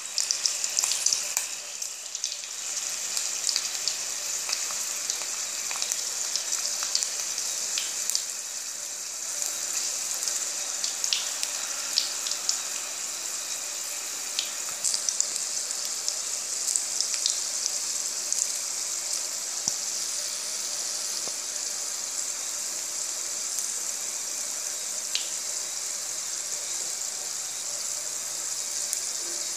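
Garlic cloves and mustard seeds frying in hot oil in a kadai: a steady sizzle, with scattered sharp pops as the mustard seeds splutter.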